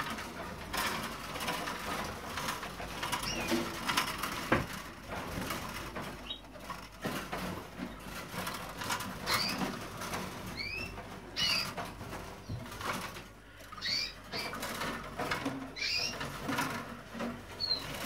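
Canaries in wire breeding cages giving short rising chirps every second or few, with bursts of wing flutter and scattered clicks and taps as they hop between perches and bars.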